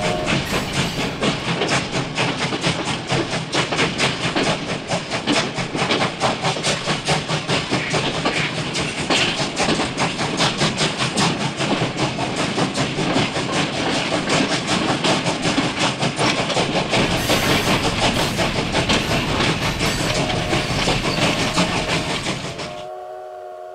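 Train running with a rapid, steady clickety-clack of wheels over rail joints. A train whistle sounds a chord of several tones at the start and again near the end, when the running noise fades out and leaves the whistle alone.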